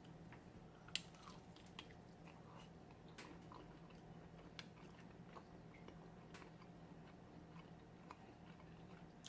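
Faint close-miked chewing of battered fried seafood: soft wet mouth clicks and small crunches scattered through, with one sharper click about a second in, over a low steady hum.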